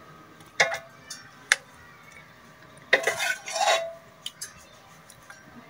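A metal serving spoon clinking and scraping against a metal cooking pot as mutton curry is spooned onto a layer of rice. There are two sharp clinks in the first second and a half, then a cluster of clanks and scrapes with a brief ring of the pot about three to four seconds in.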